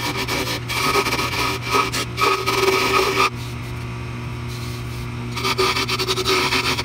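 Wood lathe running with a steady motor hum while a turning tool scrapes against the spinning red ash blank. The scraping stops about three seconds in, leaving only the hum, and comes back near the end as a tool is held to the wood to mark it.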